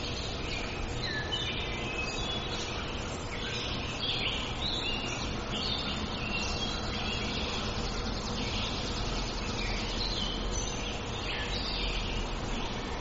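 Several birds chirping and twittering continuously, many short overlapping calls, over a steady background hiss.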